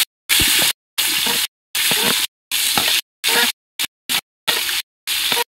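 Onions sizzling as they fry in hot oil with whole spices in a pot, being stirred. The sound cuts out to silence about twice a second.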